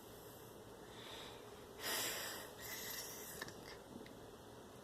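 Faint breathing: two noisy breaths about two and three seconds in.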